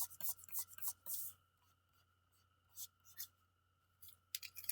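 Short, crisp scratching strokes: a quick run over the first second, a few more near the end, over a faint steady hum.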